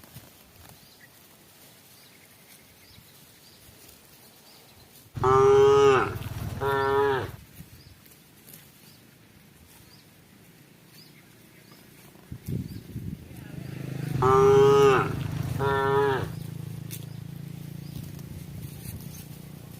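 Cow mooing twice, about nine seconds apart. Each call is a long note followed by a shorter one.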